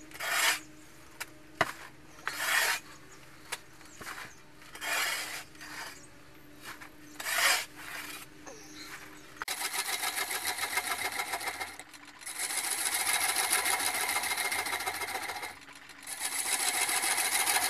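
Turning tool cutting a large red oak bowl spinning on a wood lathe: a steady scraping hiss from about ten seconds in, in three runs broken by short pauses. Before it, a string of short, separate scuffs and rustles.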